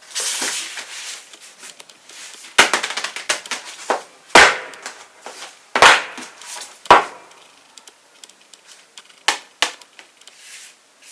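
Hands handling a small box and its packaging: sharp taps and knocks a second or two apart, with a run of quick crackling ticks and some rustling in between.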